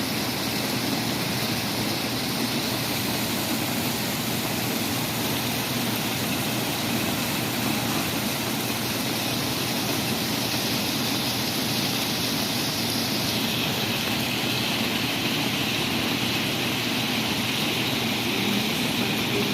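Heavy rain falling in the wind, a steady rushing noise that turns a little hissier about two-thirds of the way through.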